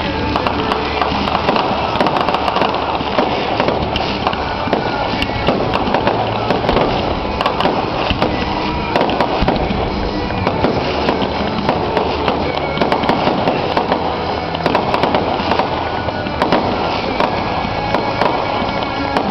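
Fireworks going off in quick succession, a dense run of bangs and crackles, with music playing along.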